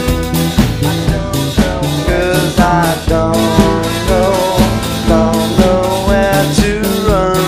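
Indie new-wave rock song: a drum kit keeping a steady beat under electric guitar.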